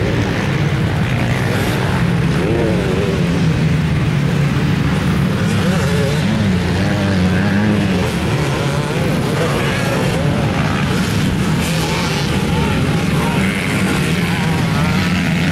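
Small dirt-bike engines running on a motocross track, their pitch wavering with the throttle.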